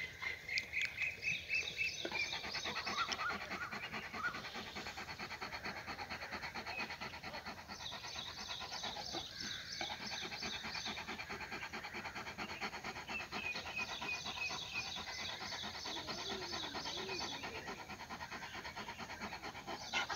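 A Pakistani bully dog panting steadily with its mouth open.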